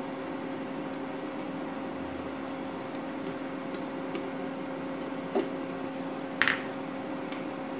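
Pancake batter and ghee cooking quietly in a nonstick frying pan over a steady low hum, with light clicks of a plastic slotted spatula against the pan about five and six and a half seconds in.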